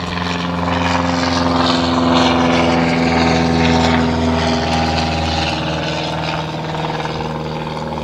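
Steady engine drone with a low hum, growing louder a couple of seconds in and easing off slightly toward the end.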